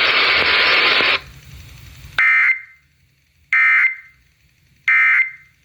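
Radio static hissing for about a second, then three short, buzzy data bursts about 1.3 s apart: the Emergency Alert System end-of-message code, which closes a warning broadcast.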